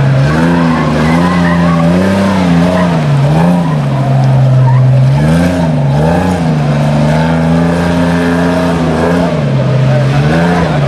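Off-road race truck's engine running loud under load, its pitch holding steady and then jumping up in short repeated revs as the truck lifts its front wheels in wheelies.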